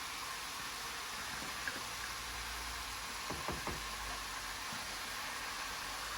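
A steady hiss with a few light knocks around the middle, and a low hum that comes in about two seconds in.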